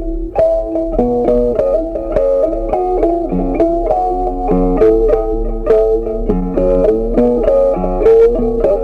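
Background music: a plucked guitar playing a melody over lower bass notes, a new note several times a second.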